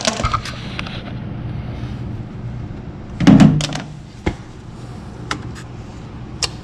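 Clicks and knocks of hands handling wires and plastic parts underneath a washing machine, with one louder thump about three seconds in, over a steady low hum.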